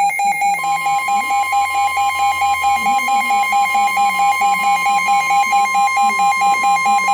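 NOAA Weather Radio warning alarm tone, a steady 1050 Hz tone, starting under a second in and announcing a new warning. Under it runs a rapid electronic beeping of about seven beeps a second from the receiver's alert, which stops right at the end.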